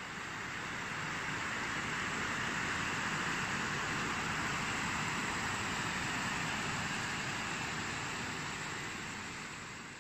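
Steady rushing of a mountain stream running over rocks, fading in at the start and out near the end.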